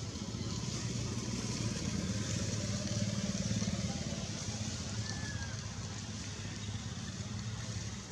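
An engine running steadily, a low pulsing hum that swells a little in the middle, with a couple of faint short bird chirps over it.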